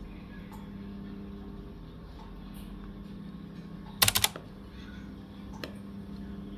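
A spoon clinking faintly against a bowl of sticky rice in coconut milk over a steady low hum, with a quick rattle of four or five sharp clicks about four seconds in.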